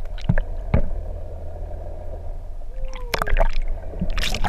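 Muffled underwater sound picked up by a camera in a waterproof housing: a steady low rumble and hum of water, with several sharp knocks and sloshes against the housing and a short falling tone about three seconds in.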